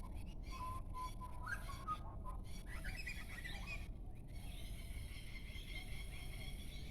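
Wild birds singing: a few clear whistled notes, then quick higher chirps, with a steady high ringing chorus taking over about four seconds in.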